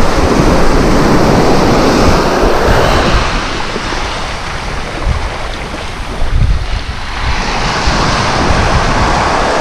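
Small waves breaking and washing up a sandy beach, the surf easing off in the middle and building again near the end, with wind rumbling on the microphone.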